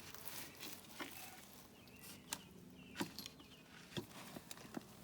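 Faint steady buzzing of honeybees in an open hive, with about five light clicks and knocks spread through it.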